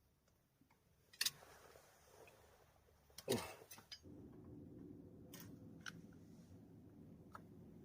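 Sharp metallic clicks and clinks of parts and tools being handled during a front wheel hub repair, with one louder falling-pitched scrape about three seconds in. About four seconds in, a steady low hum with several held tones starts and continues.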